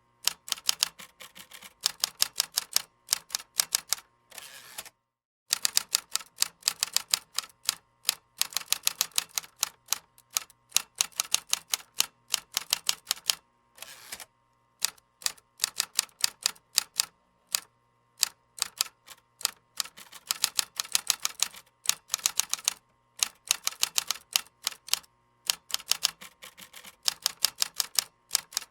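Typing on a computer keyboard: fast runs of key clicks in bursts, broken by short pauses, the longest about five seconds in.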